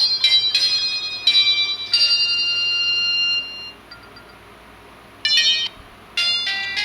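Samsung GT-E1150 phone playing ringtones through its small speaker: a high-pitched electronic melody of bell-like notes stops about three and a half seconds in, a short chime sounds about five seconds in, and another tune starts about six seconds in.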